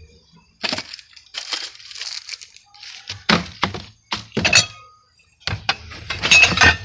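Glass and other hard household items clinking and clattering: a string of sharp knocks and rattles as things are handled and set down or tossed aside.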